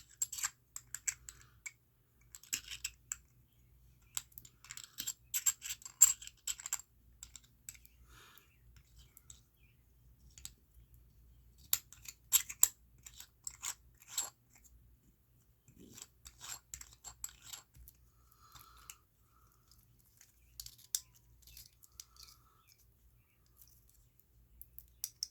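Small metal clicks and taps, in irregular clusters, of a watch case back being fitted onto a wristwatch case holding a converted pocket-watch movement, and the watch being handled.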